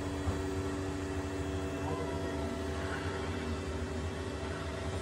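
Steady machine hum: a low rumble with several held tones.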